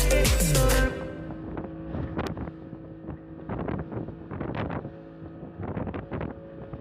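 Music that cuts off about a second in, then a fishing boat at sea: a low steady engine hum with wind on the microphone and irregular knocks.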